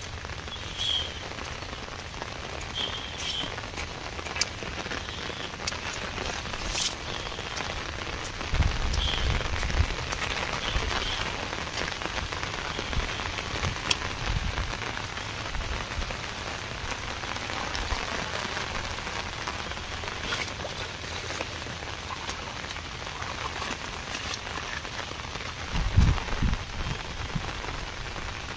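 Steady rain falling, an even hiss of rain on the surroundings. A few faint high chirps come in the first ten seconds, and there are low thuds about nine seconds in and again near the end, the loudest near the end.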